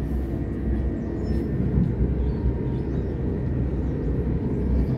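Electric commuter train running at speed, heard from inside the carriage: a steady rumble of wheels on the track with a faint, steady high tone above it.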